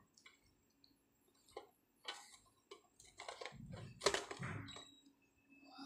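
Hands handling small toy cars and their packaging: scattered light clicks and knocks, the sharpest about four seconds in, with a few soft thumps close to the microphone around then.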